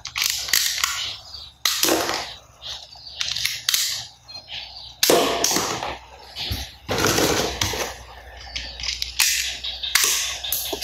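Mini toy gun firing: a string of a dozen or so short gunshot sounds, unevenly spaced, some coming in quick pairs.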